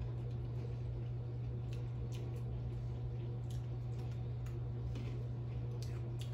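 Crunchy Cookie M&M candies being chewed, heard as a few faint crunches and clicks scattered through, over a steady low electrical hum.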